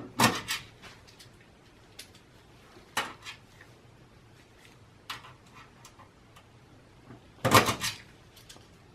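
Scattered knocks and clicks of a power supply and screws being handled in a desktop PC's sheet-metal case as the power supply is screwed back in, with the loudest clatter about seven and a half seconds in.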